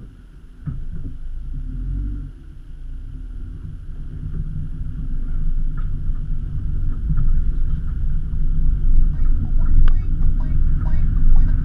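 Low rumble of a vehicle driving slowly along a dirt track, engine and tyres together, growing louder a couple of seconds in.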